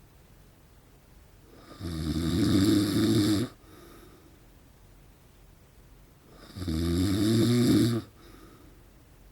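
A man in his forties snoring in his sleep: two loud, low snores about five seconds apart, each lasting about a second and a half, with quiet breathing between them.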